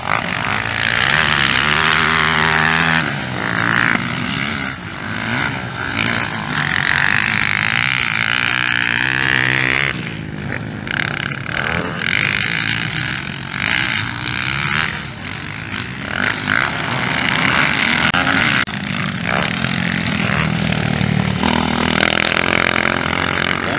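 Motocross bikes' engines racing past, revving up and falling back repeatedly as the riders shift gears and throttle through the track sections.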